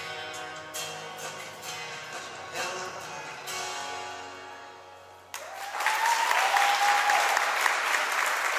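Acoustic guitar chords strummed and left ringing, fading out as the song ends. About five seconds in, an audience starts applauding, with one long held note over the clapping.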